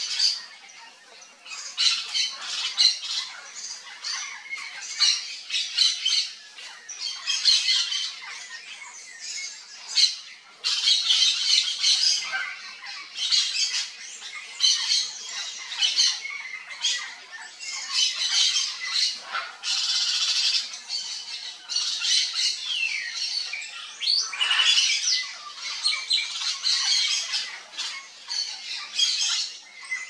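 Yellow-faced parrots calling: harsh squawks repeated in quick runs, with only short pauses.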